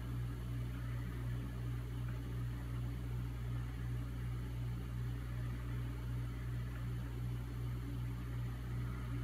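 A steady low hum with a faint even hiss and no distinct events: background room noise.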